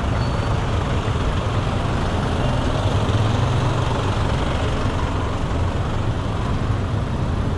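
Dense slow traffic close around: the engines of jeepneys, motorcycle tricycles, vans and trucks idling and creeping, heard as a steady low rumble with road noise.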